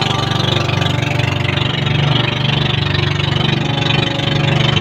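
Small outrigger boat's engine running steadily under way, with a rapid, even pulsing beat.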